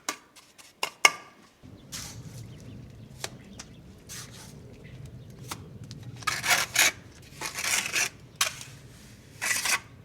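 Steel trowel scraping and tapping on wet cement mortar and a stone window sill: a few sharp taps, then repeated rasping strokes, loudest in the second half. A low steady hum starts about a second and a half in.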